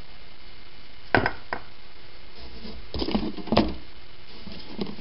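Small objects being handled and set down on a hard surface: two short knocks about a second in, a cluster of clunks and rattles around three seconds in, and a light knock near the end.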